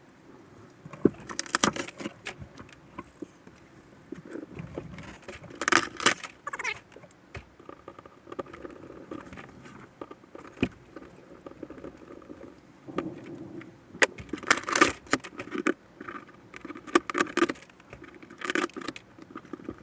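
Thin ceiling board in a motorhome being pulled and torn back by hand, with irregular crackling and snapping in several bursts amid rustling.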